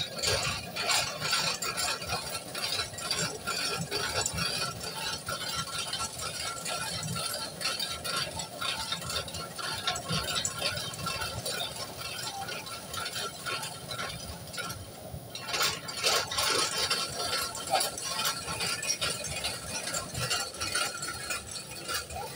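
Rice-puffing cannon drum turning over its burner flame: a dense, continuous metallic rattling and clicking from the turning mechanism and the rice tumbling inside, over a steady burner hiss. The rattling stops for a moment about two-thirds of the way through, then starts again.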